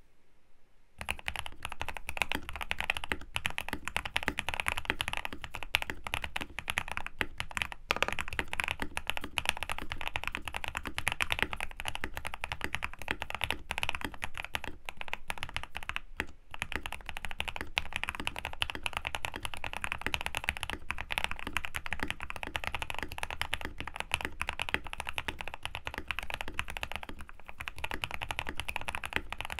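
Custom Next Time 75 mechanical keyboard with lubed Durock Moss linear switches, an aluminum plate and PBT keycaps, dampened with foam and tape mods, being typed on continuously. Fast, dense keystrokes start about a second in.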